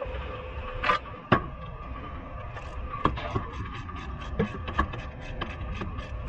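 Hand ratchet clicking in short runs as a suspension bolt is turned, after a couple of sharp metal knocks about a second in. A steady hum runs underneath.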